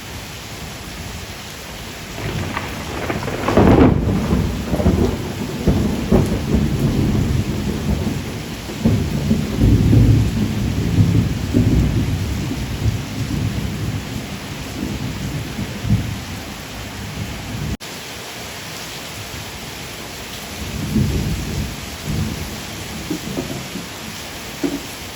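Steady rain with a long roll of thunder that builds about two seconds in, peaks soon after and rumbles on for over ten seconds, then a fainter second rumble near the end.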